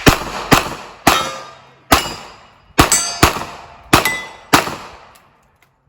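A rapid string of about eight revolver shots in about four and a half seconds, uneven in spacing, each followed by the ring of a struck steel target plate. The shooting stops about a second before the end.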